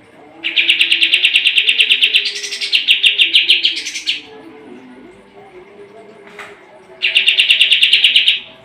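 Kapas tembak songbird singing loud, rapid trills of quickly repeated notes: one long run of about three and a half seconds, then a shorter burst near the end.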